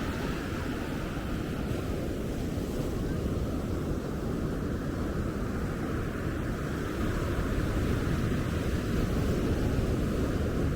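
Steady rushing of ocean surf on the beach, with wind buffeting the microphone, swelling louder about seven seconds in.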